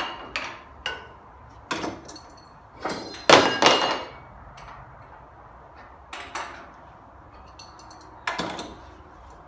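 Metal clanks and knocks from the cast-iron tables and locking levers of a combination planer-thicknesser being closed and clamped to set it up as a jointer. There are about eight separate knocks, some with a short metallic ring, and the loudest is a cluster of clanks about three and a half seconds in.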